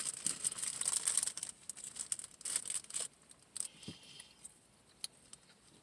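Plastic food wrapper crinkling and tearing as it is opened: dense crackling for about three seconds, then a few fainter rustles.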